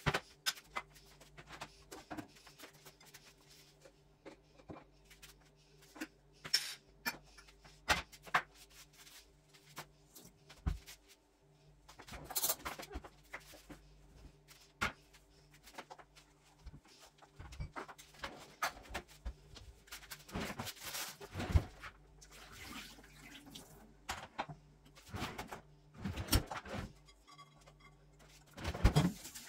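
Scattered knocks and clatter of objects being handled in a kitchen, with a few short rushes of noise, over a steady low appliance hum.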